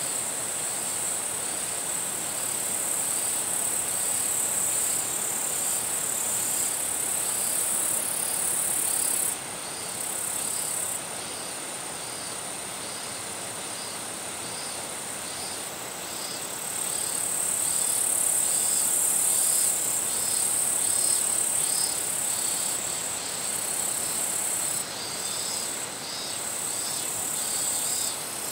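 Insects singing in dense vegetation: a steady, high-pitched trill that drops out and comes back several times, over a second insect's evenly repeated pulsing call, lower in pitch, about one and a half pulses a second.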